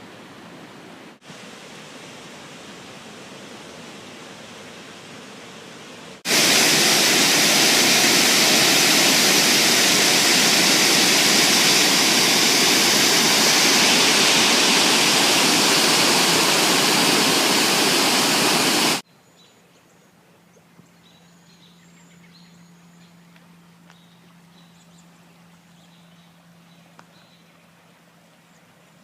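Swollen floodwater rushing, heard as a steady hiss that jumps about six seconds in to a loud, even roar close to the microphone and cuts off abruptly some thirteen seconds later. After that only a faint low hum and a few faint high chirps remain.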